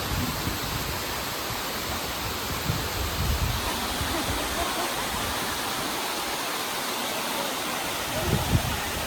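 Waterfall rushing: a steady, dense roar of falling water, with a few brief low rumbles rising out of it.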